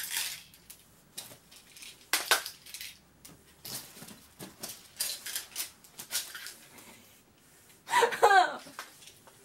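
Small plastic tubs of drawing pins rattling and clacking as they are handled and lifted out of a cardboard box, in scattered clicks. A short laugh about eight seconds in.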